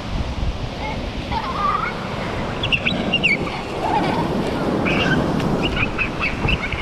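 Ocean surf breaking and washing up a sandy beach, a steady rush with a few short, high chirp-like sounds over it.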